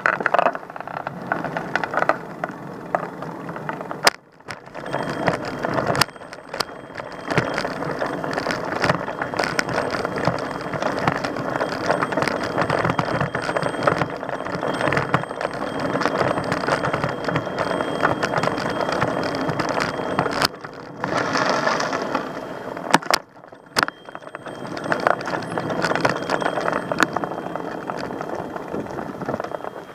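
Continuous rattling and clattering, dense with fine clicks, with a couple of brief breaks.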